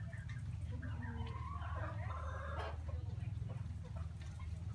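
Chickens clucking and calling over one another, with one longer, drawn-out call about two seconds in. A steady low hum runs underneath.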